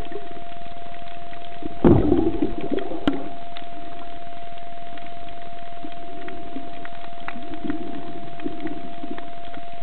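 Underwater camera audio: a constant steady hum, with a loud rush of water about two seconds in, water swelling softly later, and scattered small sharp clicks.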